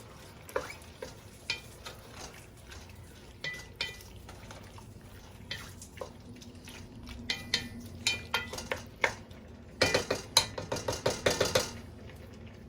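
A spoon stirring a stew in a cooking pot: scattered clinks and scrapes against the pot, then a quick run of rattling clinks about ten seconds in.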